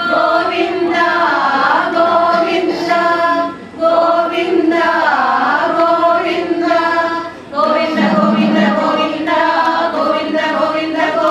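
A group of women singing a Hindu devotional song to Krishna together in unison, in phrases with two brief breaks for breath.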